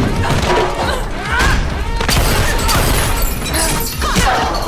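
Action film fight soundtrack: driving music under a rapid run of hits and crashes.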